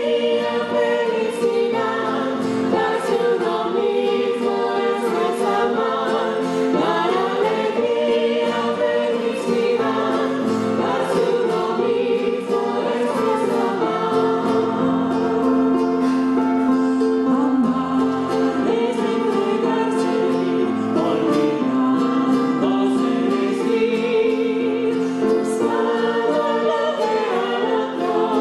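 Music: a choir singing with long held notes.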